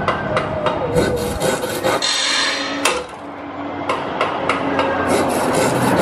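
Hammering and wood-rasping sound effects over the show's loudspeakers: a rapid, irregular run of sharp knocks with a stretch of scraping, sawing-like noise about two seconds in, standing for the doors being locked against the monsters.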